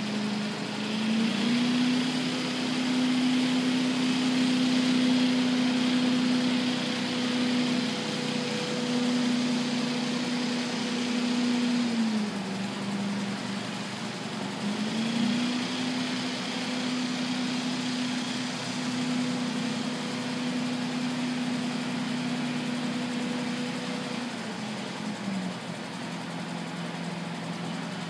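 Small gasoline engine of a walk-behind leaf blower running steadily at speed. Its pitch drops about twelve seconds in, picks back up a few seconds later, and drops again near the end as the throttle is eased off and opened.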